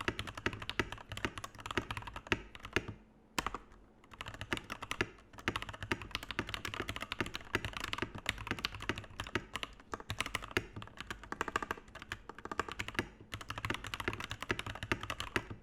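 Typing on a TM680 mechanical keyboard with stock JWK yellow switches, an aluminium plate and PBT keycaps: fast, dense keystrokes, with short pauses about three seconds in and again near the end.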